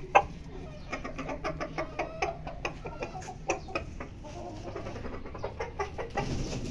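Chickens clucking: a steady run of short, repeated clucks, with one sharp, loud sound just after the start.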